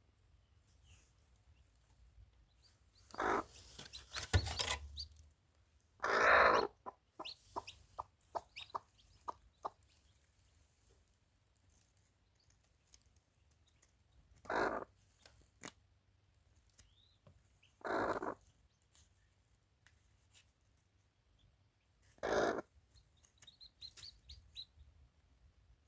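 Chickens clucking: about five loud, separate calls spaced several seconds apart, with a run of short, quick sounds after the second call.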